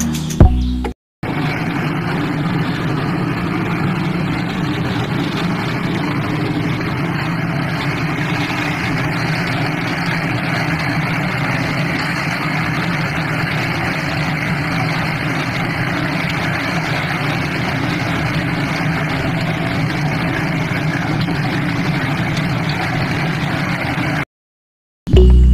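Small DC motor of a homemade miniature concrete mixer running steadily, turning the mixer drum with a constant buzzing whir.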